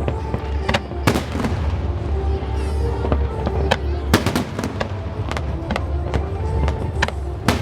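Fireworks display with about a dozen sharp bangs from shells bursting at irregular intervals, over a steady deep rumble. Music plays alongside.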